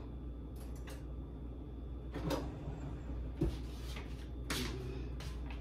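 A few scattered knocks and bumps in a kitchen over a steady low hum, the loudest about two and a half and three and a half seconds in.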